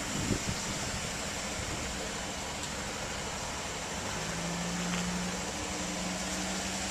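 2008 Chevrolet Avalanche pickup idling, heard as a steady even hum with hiss. A low steady drone joins about four seconds in.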